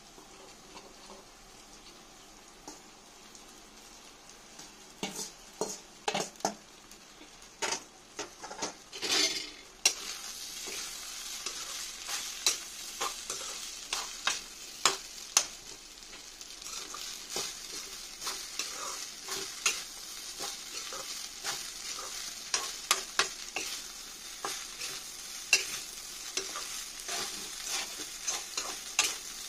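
Rice being stir-fried in a wok with a metal spatula: a steady sizzle with frequent sharp scrapes and clacks of the spatula against the pan. The first few seconds hold only a faint, low sizzle of the masala. About nine seconds in there is a loud rush of sizzling as the rice goes in, and the sizzle stays louder after it.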